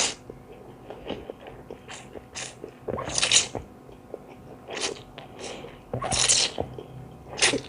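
Close-miked eating: a string of crunchy bites and chewing, several loud crunches about a second apart, from fresh raw vegetables eaten with a khanom jeen seafood salad.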